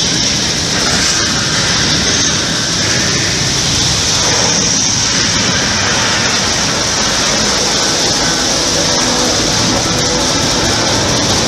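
Roar of the Saturn V rocket at ignition and liftoff, a recording played loudly through a room's sound system: a steady, dense rumble with no let-up, loud enough to make the ground shake.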